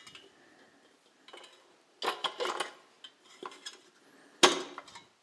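Stainless steel mixing bowl and wire whisk clattering while being handled: several short metallic knocks, with the loudest clank near the end as the bowl is set onto the stand mixer.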